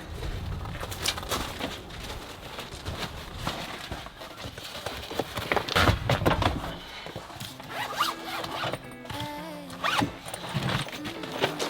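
A zipper pulled open or shut in several quick rasping strokes, then soft background music comes in about halfway through.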